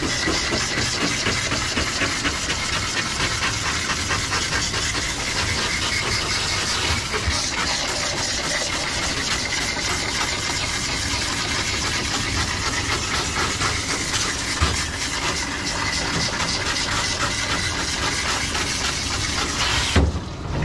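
Water spraying steadily from a grooming-tub hose nozzle into a wet dog's coat, an even hiss that cuts off suddenly near the end.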